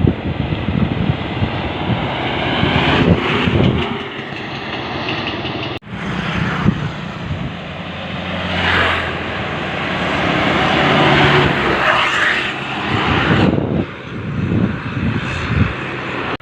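Tour bus passing close by, its engine running under a low, droning ship-style air horn that holds steady tones for several seconds in the middle.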